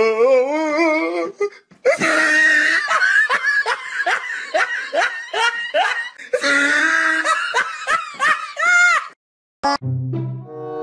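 A person laughing hard in rapid repeated bursts for several seconds, breaking off abruptly; about ten seconds in, background music with low sustained notes begins.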